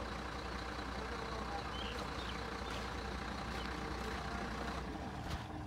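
Heavy diesel engines of a tipper truck and a backhoe loader running steadily, the truck moving slowly, with the deep low rumble dropping away about five seconds in.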